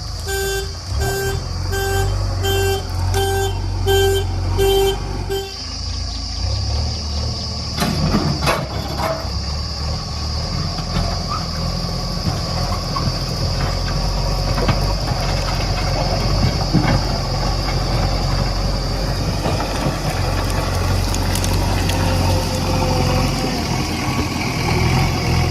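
Heavy diesel engine running, with a reversing alarm beeping at an even pace, about one and a half beeps a second, for the first five seconds. There is a brief clatter about eight seconds in.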